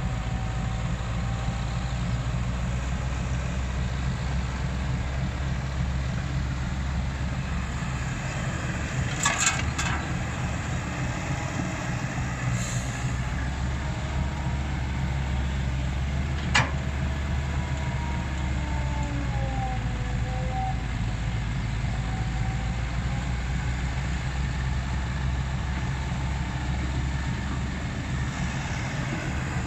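Komatsu hydraulic excavator's diesel engine running steadily, with a few sharp metallic knocks about a third of the way in and one more a little past halfway.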